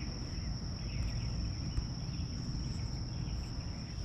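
Steady, high-pitched trilling of an outdoor insect chorus, over a constant low rumble.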